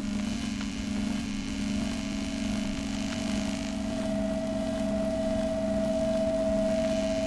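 Ambient lowercase drone: a steady low hum, with a higher held tone that fades in about two seconds in and slowly grows louder, over a faint hiss.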